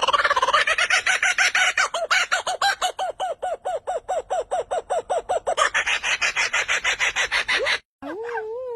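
A rapid run of short, clucking bird-like calls, about seven a second, each a quick rise and fall in pitch. Near the end it cuts off suddenly and a held, wavering call takes over.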